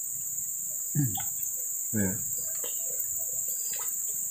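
Steady high-pitched drone of forest insects in two constant bands, with two brief low-pitched calls about one and two seconds in.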